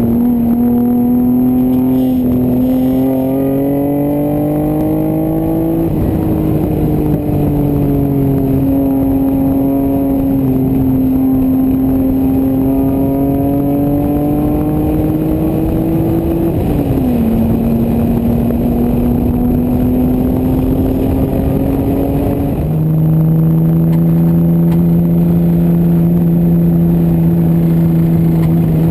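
1988 Toyota Supra's 7M-GE straight-six engine under load on track, its note climbing and falling with the revs. The pitch drops sharply about six seconds in and again about sixteen seconds in, and the note settles steadier and lower from about twenty-three seconds on.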